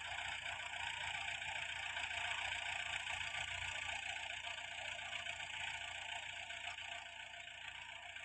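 Distant tractor engine running steadily while it pulls a ridging implement across the field, growing slightly fainter near the end.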